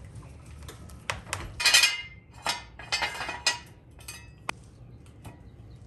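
Metal clinks and knocks of a steel floor jack and jack stand being handled and set in place under a car. There is a louder scraping rattle about two seconds in and a short ringing clink late on.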